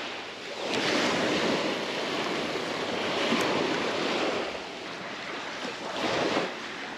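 Small surf waves breaking and washing up the sand at the water's edge, mixed with wind on the microphone. The wash swells about a second in and again near the end.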